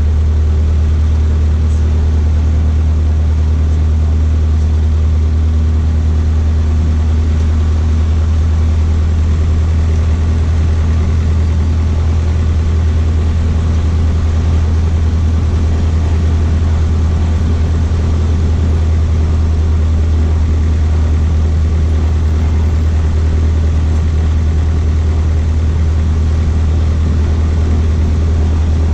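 Cessna 152's four-cylinder Lycoming O-235 engine and propeller running steadily at low taxi power, heard from inside the cockpit as a loud, even, low drone.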